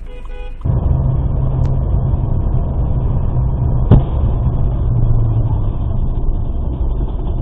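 Steady road and engine noise of a vehicle driving on a highway, with a single sharp bang about four seconds in: a truck tyre bursting.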